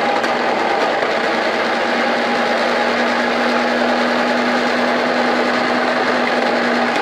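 Electric olive-scoring machine running steadily, its motor spinning the bowl: a constant hum with a higher whine over it.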